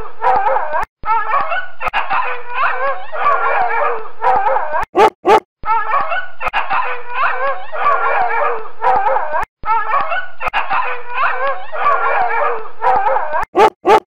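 Dog barking and howling in long, dense stretches, broken by brief gaps about one, five, nine and a half and thirteen and a half seconds in.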